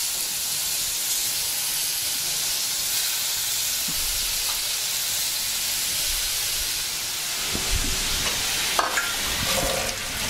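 Marinated prawns sizzling in hot coconut oil in a frying pan: a steady frying hiss, with a few soft knocks in the second half as more prawns go in and are moved about.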